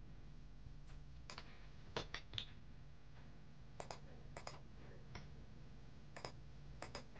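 Scattered clicks from a computer mouse and keyboard, about a dozen, several in quick pairs, over a faint low hum.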